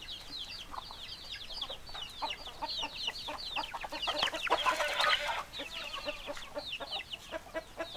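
Chickens clucking, with many short, high, falling peeps running over the low clucks. A louder harsh squawk-like burst comes about halfway through.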